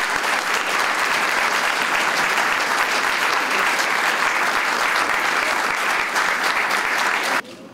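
Audience applause, a steady crowd of hands clapping, which cuts off suddenly near the end.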